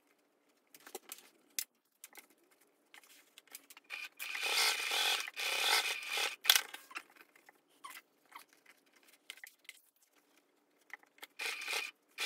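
Stiff waxed canvas and webbing straps being shifted and smoothed by hand, rustling and scraping. About four seconds in, a domestic sewing machine runs for a couple of seconds, stitching a tote strap down, and stops with a sharp click.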